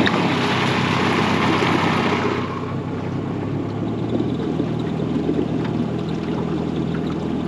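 Boat's outboard motor running steadily as the boat gets under way, with a louder rushing hiss over it for the first two seconds or so.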